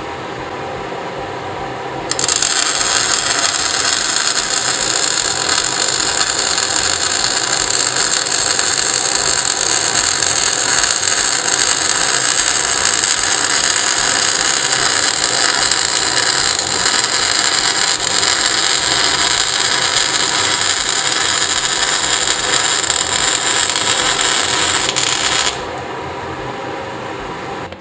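MIG/MAG welding arc under argon–CO2 mixed shielding gas at only 5 litres per minute, crackling from about two seconds in and stopping sharply near the end. The weld keeps sputtering: the draught from a fume extractor placed close by blows away too much of the gas, and the bead comes out porous. The extractor fan hums steadily throughout.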